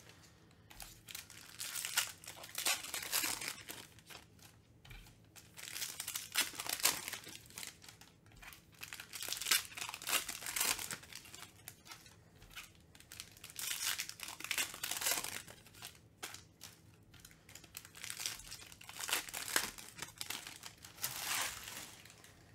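Foil wrappers of Panini Mosaic football card packs being torn open and crinkled, one pack after another, in bursts every few seconds with quieter gaps while the cards are handled.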